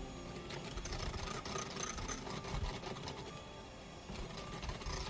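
Handheld electric mixer running steadily, its beaters whisking cream icing in a glass bowl up to a spreadable consistency.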